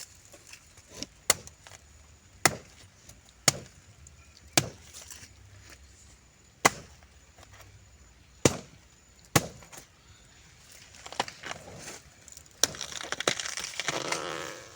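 Knife chopping on a cutting board: single sharp strikes about once a second, then a denser stretch of rustling, crunchy noise near the end.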